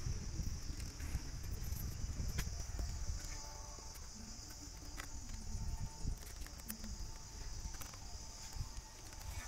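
Steady chorus of crickets, a continuous high buzz, over a low rumble, with a few small clicks as the plastic lamp holder and conduit fitting are handled.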